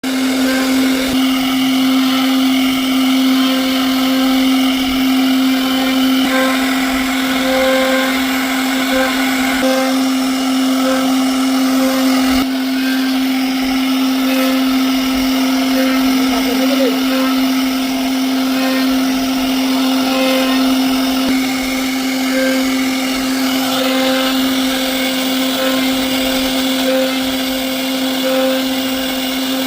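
CNC router spindle running at high speed with a steady whine while the bit cuts into wood, over a hiss of cutting noise. The sound changes abruptly a couple of times, about six and twelve seconds in.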